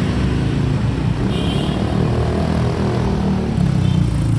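A vehicle engine running with a steady low rumble, and a brief faint high tone about a second and a half in.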